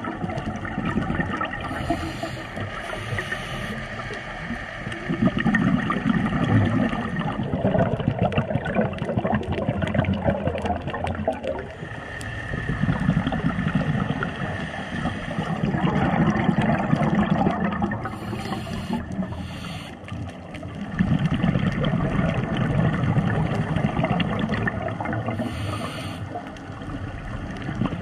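Scuba diver breathing through a regulator underwater: exhaled bubbles gurgling in swells every few seconds, with a few brief high hisses between them.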